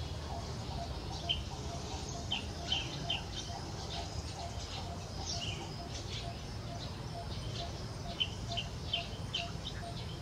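Short high-pitched animal chirps in scattered clusters, each a quick falling note. Under them runs a faint note repeating about twice a second and a steady low rumble.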